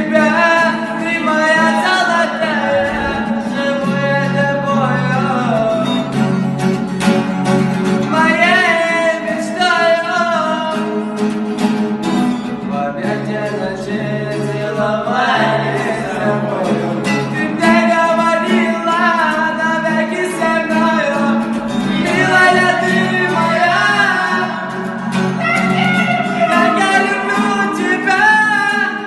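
A song: a solo voice singing long, wavering, ornamented phrases over a steady instrumental accompaniment.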